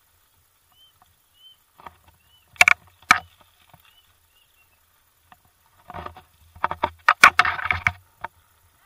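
A bicycle clattering and knocking over a bumpy dirt farm track: two sharp knocks a little before halfway, then a burst of rattling near the end. A few faint bird chirps come in the first seconds.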